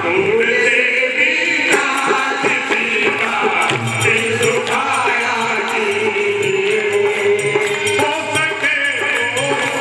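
Devotional hymn sung by men's voices over a sustained harmonium, with small jingling percussion keeping the beat.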